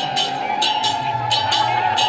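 Loud festival band music: a repeating beat of metallic percussion strokes, many in quick pairs, over drumming and a steady held high note.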